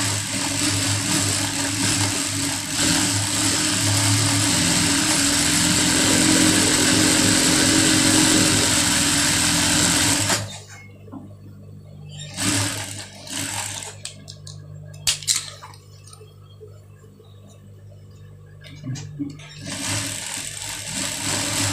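Industrial sewing machine running steadily as it stitches sfifa braid trim along the seam of a djellaba hood, stopping suddenly about ten seconds in. After that there are a few soft knocks and fabric handling, and the machine starts up again near the end.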